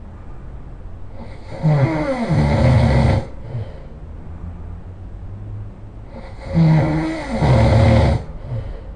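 A person snoring loudly: two long snores about five seconds apart, each starting on a low tone that bends downward and then turning rough and noisy.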